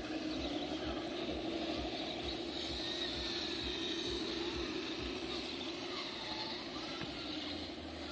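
Electric motors and geared drivetrains of RC rock crawlers whining steadily as they crawl over rock, the pitch dipping and rising with the throttle about six seconds in.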